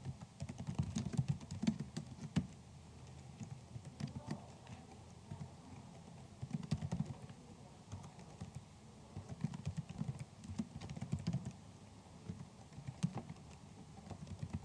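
Typing on a computer keyboard: bursts of rapid keystrokes with short pauses between them.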